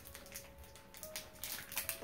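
Plastic candy-bar wrapper crinkling as it is torn open by hand, with a cluster of crackles in the second half, over faint background music with long held notes.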